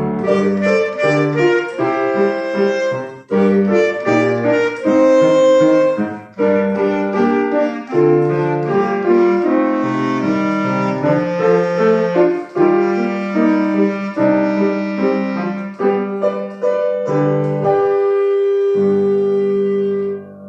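A solo wind instrument plays a melody over piano accompaniment, in the closing bars of a short piece. It ends on a long held final note that stops near the end.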